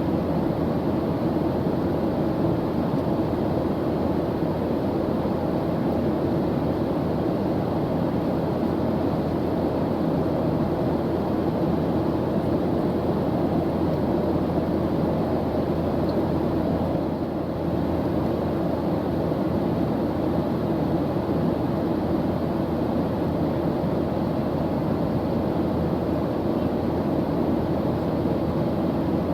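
Steady, unbroken drone of an airplane engine in flight: a constant rushing noise, deepest and strongest in the low-mid range.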